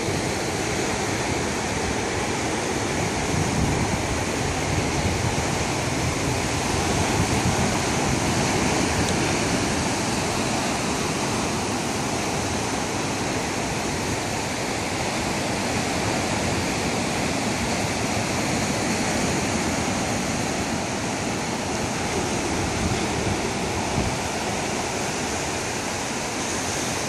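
Ocean surf breaking and washing onto a cobble beach: a steady, full rush of water that swells gently in loudness now and then.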